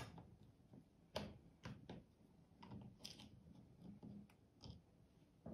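Faint, irregular small clicks and taps of a screwdriver working the screws out of a laptop's plastic bottom cover.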